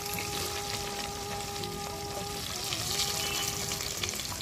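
Potato and eggplant pieces sizzling steadily as they fry in hot mustard oil in an iron kadai.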